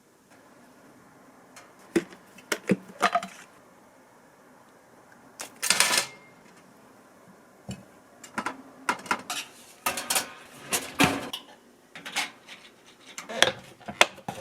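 Irregular clinks, taps and knocks of kitchenware being handled and set down, with a brief rustling burst about six seconds in.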